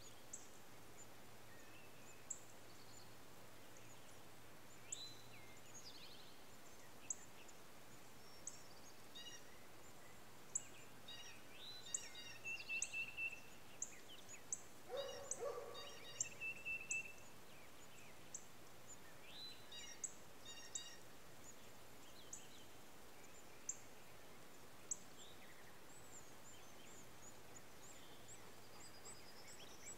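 Faint, scattered animal calls over a low hiss: many short high chirps throughout, thickest around the middle, with two brief trills and one lower, louder call about halfway through.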